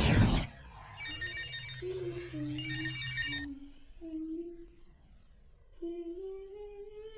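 A loud noisy passage cuts off half a second in. A mobile phone then rings in two short trilling bursts, and a slow tune is hummed softly over it and after it.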